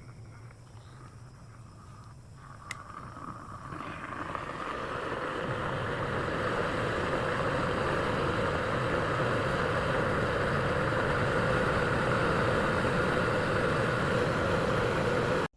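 Water in a 1500 W stainless steel electric kettle coming to the boil: a light tick, then the bubbling noise swells over a few seconds into a steady rushing rolling boil, which cuts off abruptly near the end.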